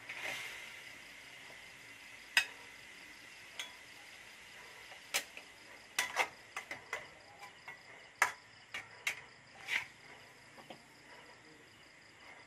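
A spatula knocking and scraping against a metal wok in irregular strokes as stir-fried pork and onions are scooped out into a bowl.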